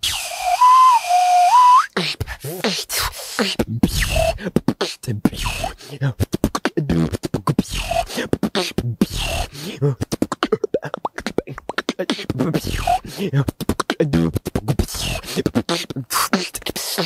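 A whale whistle, a low beatbox whistle blown into one cheek, held for about two seconds, its pitch switching back and forth between a higher and a lower note as a finger presses the cheek. It then breaks into a beatbox routine into a handheld microphone: a fast rhythm of kicks, snares and mouth clicks with a few short whistled glides worked in.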